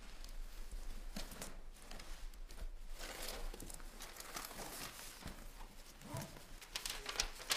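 Faint rustling of cloth and paper being handled, with scattered soft crinkles and light taps and a short run of sharper ticks near the end.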